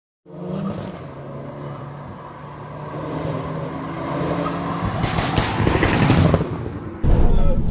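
Tuned Mk5 Golf GTI with a 2.0 TFSI turbo engine approaching on a wet road, its engine note growing louder as it nears, then flashing past with a loud rush of noise. Just before the end there is a sudden cut to a louder, low rumble.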